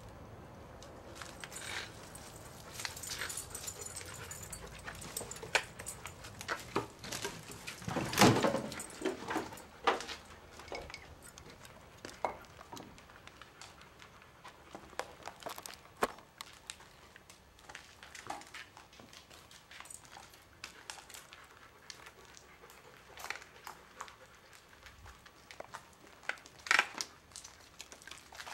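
Footsteps crunching and scraping over a floor littered with broken plaster, paper and boards: scattered crackles and clicks, with a louder crunch about eight seconds in.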